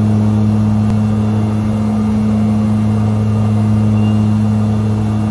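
Twin Garrett TPE331-12 turboprops and their propellers in flight, heard from inside the cockpit of a Fairchild Swearingen Metro 23: a loud, steady drone with a deep hum and its higher overtone over a wash of engine and air noise.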